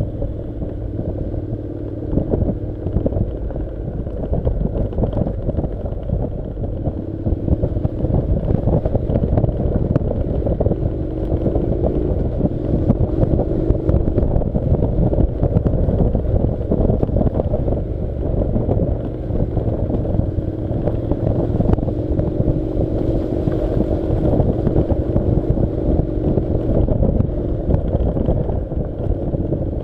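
Honda NC700's parallel-twin engine running as the motorcycle rides a gravel track, its pitch drifting gently up and down with speed, mixed with wind on the microphone and the steady clatter and knocks of gravel under the tyres and suspension.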